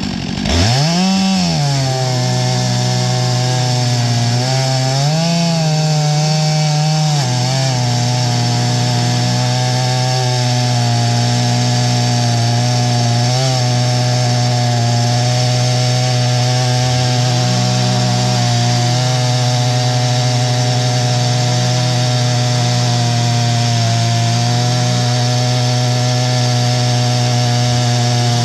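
Stihl MS661 two-stroke chainsaw on an Alaskan chainsaw mill, at full throttle, ripping a pine log lengthwise with a 36-inch bar and full chisel chain. The engine pitch drops soon after the start as the chain takes the load, then holds steady and low, lifting briefly a couple of times.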